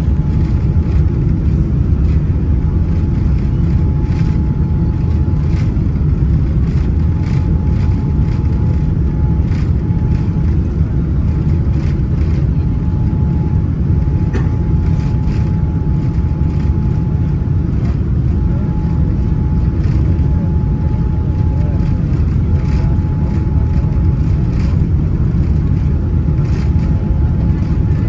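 Steady low rumble of a Boeing 787 airliner heard from inside the passenger cabin, with a faint steady whine that breaks off now and then.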